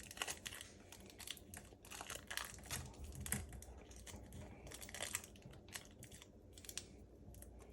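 Adhesive tape being pulled from the roll and wrapped around the joint between two dryer-vent cleaning rods: faint, irregular crinkling and crackling with small clicks.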